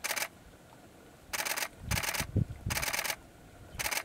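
Camera shutter firing in rapid bursts: five short runs of fast, even clicks. A low thump comes about two and a half seconds in.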